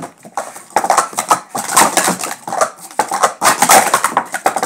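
Plastic sport-stacking cups (Speed Stacks) clattering in a fast run of sharp clicks and knocks as they are stacked up and down at speed during a timed cycle stack.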